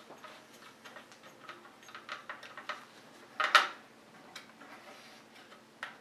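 Small double-threaded standoff screws being finger-tightened into the NZXT Kraken X62 mounting bracket on a motherboard: light scattered clicks and ticks, with one louder sharp knock about halfway through.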